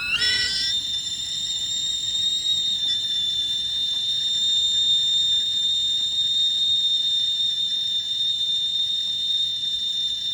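Stovetop kettle whistling at the boil: the whistle leaps up in pitch at the very start, then holds one loud, shrill, steady note.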